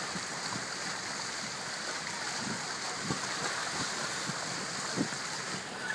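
Steady rush and splash of water streaming along the hull of a sailboat under way, its bow wave foaming past.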